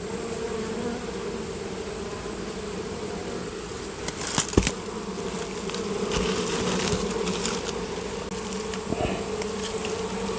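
Honeybees buzzing steadily in a wooden box hive, a small colony that has failed to build up. A sharp knock about four and a half seconds in, and some rustling of the hive being handled.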